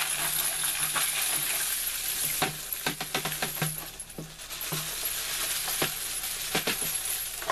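Wet-tumbled brass cartridge cases, stainless steel tumbling pins and water pouring from a tumbler drum into the plastic basket of a Frankford Arsenal wet/dry media separator. A dense rushing hiss of pins and water for the first couple of seconds gives way to scattered sharp clinks of brass cases.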